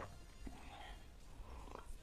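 Faint close-up mouth sounds of someone sipping a drink from a glass mug: a soft sip about a second in, with small clicks around it.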